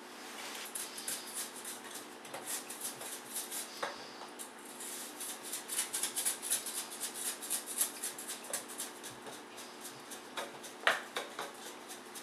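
Wet perlite refractory mix, bound with sodium silicate and plaster of Paris, being tipped into a steel #10 can and rammed down with a wooden dowel: a dense run of short crunching and scraping sounds, with one sharper knock near the end.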